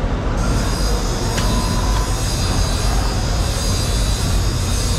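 Steady, loud rumbling background noise with no clear single source. A high hiss sets in about half a second in, and there are one or two faint sharp clicks.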